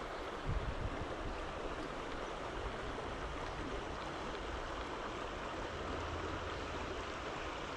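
Creek water running steadily, an even rush with no pauses, and a short low bump about half a second in.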